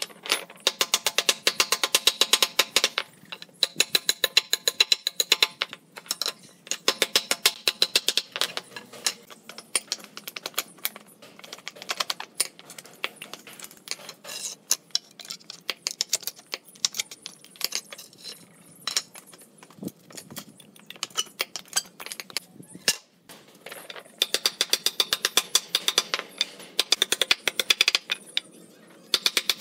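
Claw hammer striking nails in old pallet boards on a wooden block, knocking them out. The blows come in quick runs of several a second with a metallic ring, broken by short pauses.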